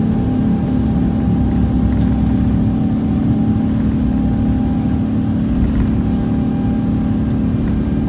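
Airbus A350's Rolls-Royce Trent XWB turbofan engines running at takeoff thrust, heard from inside the cabin during lift-off and initial climb: a steady, loud engine hum over a low rumble.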